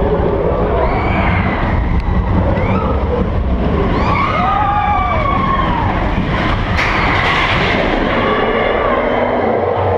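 Vekoma steel roller coaster train rolling along its track with a steady, loud rumble. Brief rising-and-falling squeals come about four to five seconds in.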